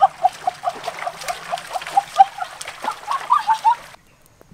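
A frog calling in a rapid series of short, pitched croaks, about four a second, over the rush of a shallow rocky stream. Both cut off suddenly about four seconds in.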